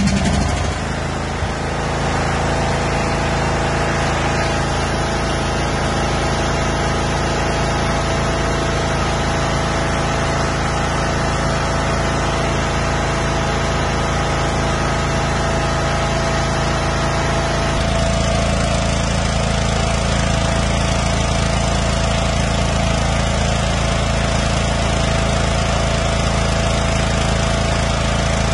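Toro Wheel Horse 16-38 HXL lawn tractor engine running steadily just after a choke start, with the throttle set to fast. Its tone shifts about two-thirds of the way through.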